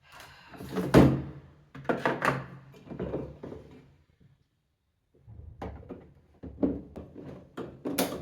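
Plastic and steel parts of a baby dining chair knocking and clunking as the legs are pushed into place on the chair body, with one sharp loud knock about a second in and a brief silent gap midway.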